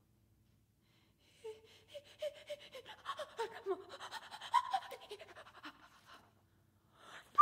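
A woman's solo voice in an avant-garde vocal piece. After about a second and a half of quiet comes a run of soft, breathy short sounds with little pitched glides up and down, which die away about a second before the end.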